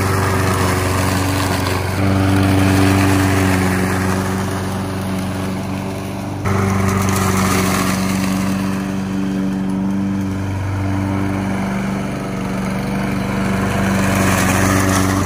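Toro 22-inch Recycler mower's Briggs & Stratton single-cylinder four-stroke engine running steadily at mowing speed while it cuts through grass and dry leaves. The steady engine note jumps abruptly in loudness about two seconds in and again at about six and a half seconds.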